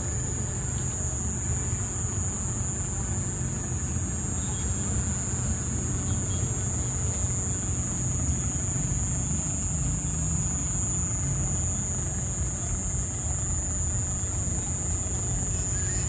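Small boat's outboard motor idling, a steady low rumble, with a steady high-pitched whine over it.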